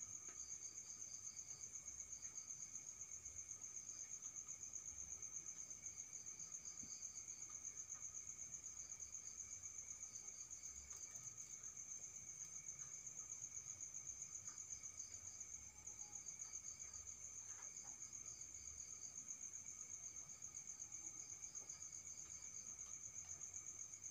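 Crickets chirping at night: a faint, continuous high trill, with softer repeated chirps from a second insect just beneath it.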